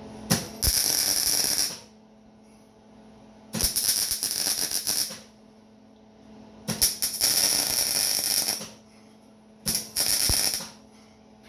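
Electric arc welding in short tacks: four bursts of crackling arc, each about one to two seconds long, with a steady low hum between them.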